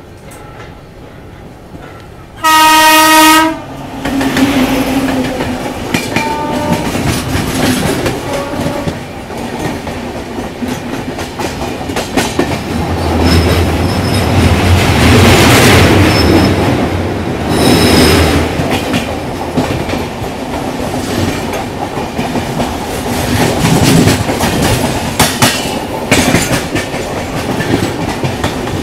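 A locomotive horn sounds one loud blast of about a second. Then the double-decker express train's wheels clatter over the rail joints, getting louder as the train moves off and picks up speed.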